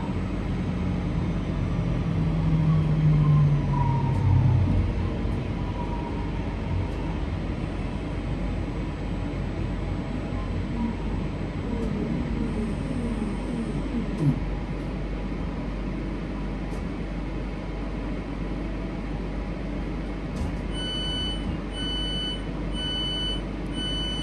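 Class 323 electric multiple unit braking to a stop, its thyristor traction equipment whining downward in pitch over the first few seconds. A single knock comes about 14 seconds in. Near the end, a string of evenly spaced electronic beeps sounds, the door warning of the stopped train.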